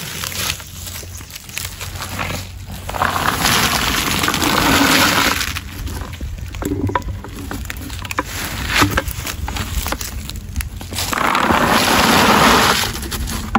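Raw in-shell cashew nuts pouring out of a tipped bucket into a sack, a dense rattling rush of hard nuts, twice, the second near the end.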